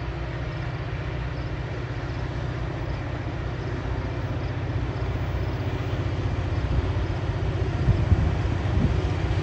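EMD GP40-series diesel-electric freight locomotives, with turbocharged two-stroke V16 engines, approaching under power with a steady low engine rumble that grows slowly louder. A few heavier low thumps come near the end.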